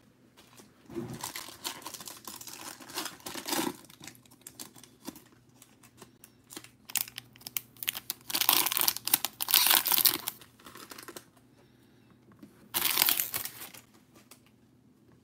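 Foil trading-card pack being torn open and its wrapper crinkled, in three bursts: a longer one a second in, the loudest a few seconds later, and a short one near the end.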